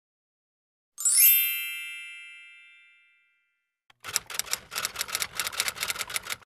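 A bright chime rings out about a second in and fades away over about two seconds. From about four seconds in comes a quick run of typewriter-key clicks, about seven a second, as text is typed onto the screen; they stop suddenly near the end.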